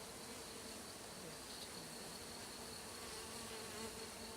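A mass of honeybees buzzing steadily around an open hive as a package is installed.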